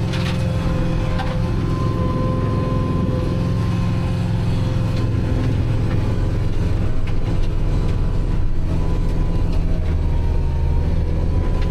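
Kubota tractor engine running steadily, driving its 3-point-hitch rear snowblower while clearing a driveway: a continuous low drone with a thin steady whine above it.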